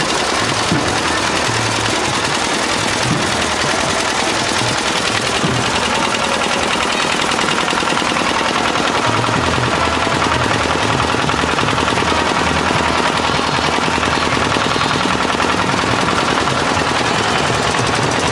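An engine running steadily and close by, with a fast, even pulsing and a low hum that wavers in pitch.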